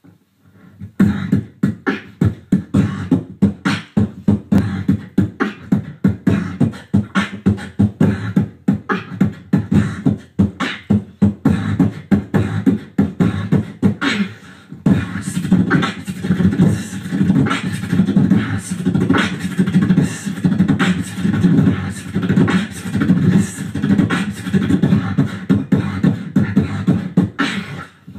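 Beatboxing into handheld microphones: fast, technical mouth-percussion with quick kick, snare and hi-hat strikes. About halfway through a second beatboxer joins, and the pattern thickens with a steadier low bass line under the hits.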